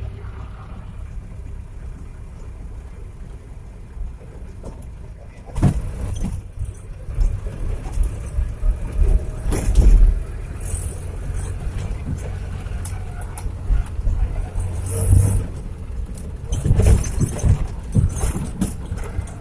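A Daihatsu Taft 4x4 running as it is driven, with a steady low rumble. From about five seconds in come repeated knocks and jolts as it bounces over a rough track.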